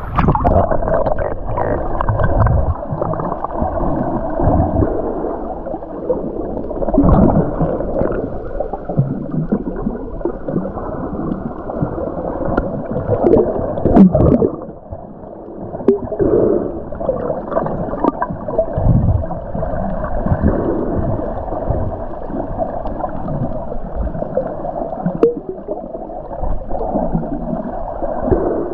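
Muffled water sounds picked up by a camera held under water while snorkeling: gurgling and sloshing, with irregular low thumps and swells.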